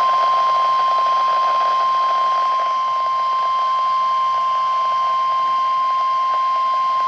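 Emergency Alert System warning alarm tone from a weather radio broadcast, the single 1050 Hz tone of NOAA Weather Radio: one steady, unbroken tone over a faint radio hiss. It is the signal that a warning message is about to be read, here a severe thunderstorm warning.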